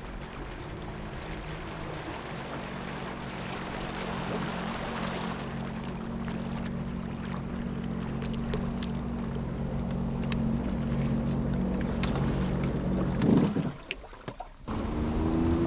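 Sea-Doo GTX 170 personal watercraft idling in at low speed, its engine tone steady and growing louder as it nears. Near the end there is a brief louder surge, then the engine stops.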